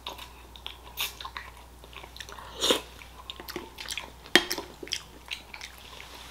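Close-miked eating of pork congee from a ceramic spoon: wet chewing and mouth smacks in short irregular clicks, with a sharp click a little past four seconds in.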